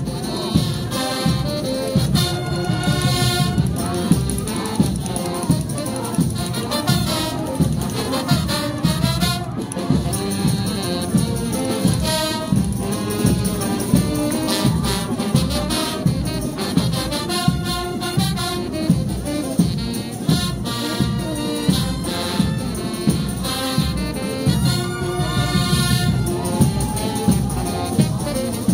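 Frevo brass orchestra playing, with trumpets and trombones carrying the tune over drums that keep a steady, driving beat.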